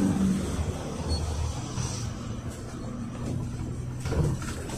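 Cabin noise inside a GAZelle Next minibus on the move: its Evotech petrol engine and tyre rumble. The engine's note fades just after the start, and a short thump or rattle comes about four seconds in.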